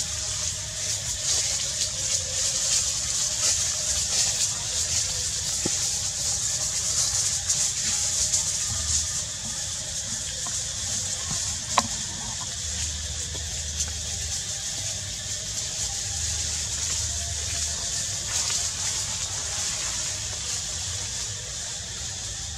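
Steady high-pitched hiss of outdoor background noise, with low rumbling patches and a single sharp click about twelve seconds in.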